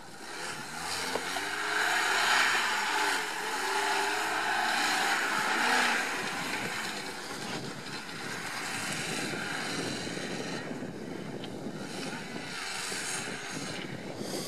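Niva off-roader's engine revving up and down as it drives a competition course on rear-wheel drive, loudest in the first half. Something at the front is rumbling, which the commentator takes for a front differential that is probably breaking up.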